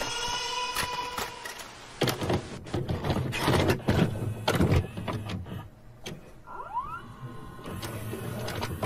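VCR and TV sound effects: a hum under static hiss, then a run of mechanical clicks and clunks, and a short rising whir that settles into a steady tone a little after halfway, like a video tape being loaded and played.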